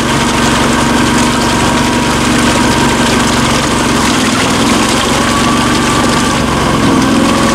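Argo amphibious vehicle's engine running steadily as the tracked machine works stuck in deep creek mud, the pitch rising a little near the end.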